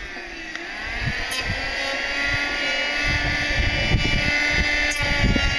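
Handheld electric power tool shaping the edge of a curved wooden pontoon panel. Its motor whine dips about half a second in, then winds back up and runs steadily, with rough noise from the cut coming and going as it bites into the wood, strongest in the second half.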